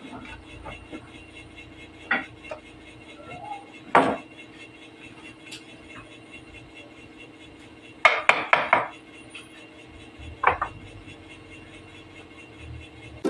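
Knocks and clatters of a wooden table frame being handled and set down on a plank workbench: single sharp knocks about two and four seconds in, a quick run of knocks a little after eight seconds, and one more about ten and a half seconds in, over a steady hum.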